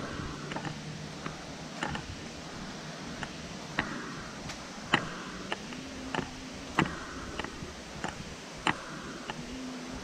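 Footsteps of someone walking on an asphalt path: sharp taps, the loudest about every two seconds with fainter ones between, over a steady outdoor background.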